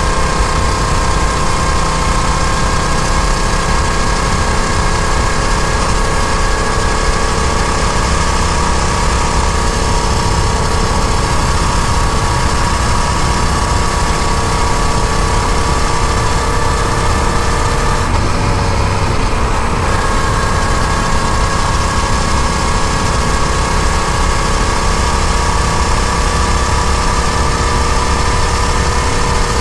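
Yamaha FZ-07 motorcycle's parallel-twin engine running under way at a steady, slowly climbing note. About two-thirds of the way through, the note wavers briefly, then settles again.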